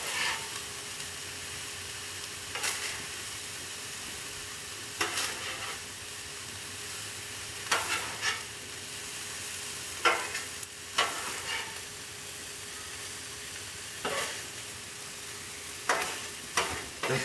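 Fried rice sizzling steadily on a Blackstone flat-top steel griddle, with metal spatulas scraping across the griddle surface every two or three seconds as the rice is turned and spread.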